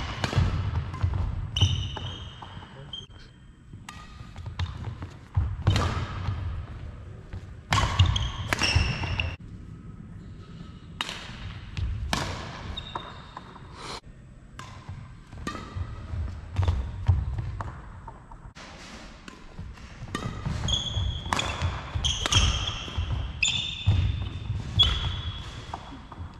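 Badminton rally: sharp racket strikes on the shuttlecock, shoe squeaks and thudding footfalls on the wooden court, echoing in the large hall.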